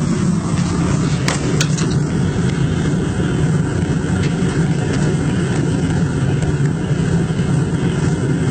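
Two-burner propane gas forge running at 6 psi, its lowest setting, with a steady low burner roar. The owner suspects the front burner is getting less gas pressure than the back, and its flame looks to be creeping back into the burner.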